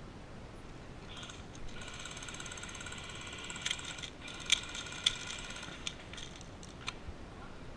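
Airsoft rifle's high-capacity magazine being wound, a fast ratcheting for about three seconds, followed by several separate sharp clicks as the rifle is handled.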